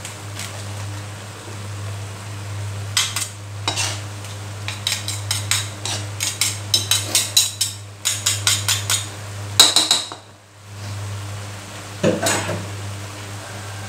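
Metal slotted spatula scraping and tapping against a black wok while stirring a simmering sauce: a quick run of scrapes and clinks, several a second, for several seconds, over a faint sizzle. One more clink comes near the end, when the spatula is set down in the wok.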